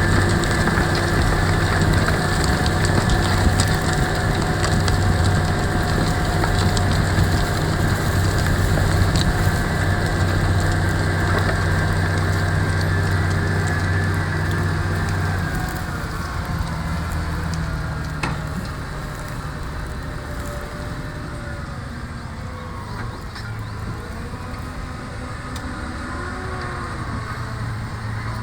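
Case IH Optum 300 tractor's six-cylinder diesel engine running steadily under load while pulling a plough. About halfway through, the engine note drops lower and quieter.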